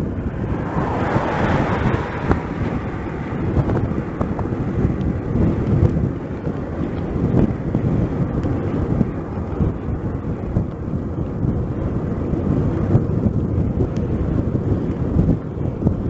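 Wind buffeting a small action camera's microphone on a moving bicycle: a steady low rumble, with a swell of higher hiss about a second in that fades over the next couple of seconds.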